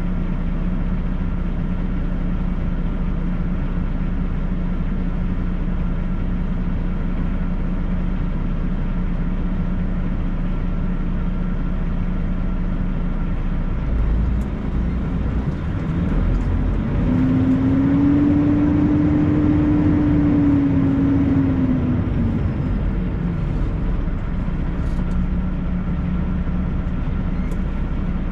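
International LoneStar semi truck's diesel engine idling with a steady drone, then pulling away: about halfway through, the engine note rises, holds for a few seconds and falls back.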